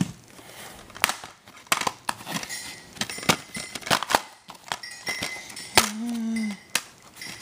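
A plastic DVD case and its packaging being handled, giving a run of sharp clicks, snaps and rustles. A short low tone sounds about six seconds in.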